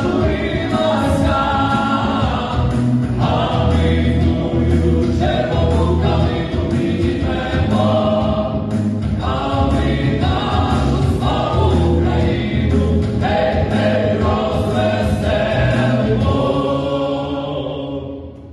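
Choir singing with instrumental accompaniment and a heavy bass line, fading out near the end.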